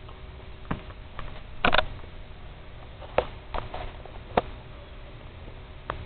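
Heil outdoor air-conditioner condensing unit running with a steady low hum and faint steady tones. Scattered sharp clicks and taps sound over it, the loudest about two seconds in.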